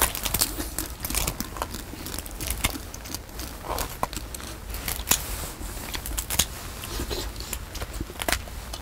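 Kitchen scissors snipping through cooked snow crab legs: a string of irregular crisp snips and shell cracks.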